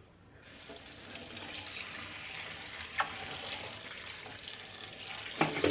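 Kitchen tap running water into a sink, turned on about half a second in, with a couple of sharp clinks of dishes or utensils later on.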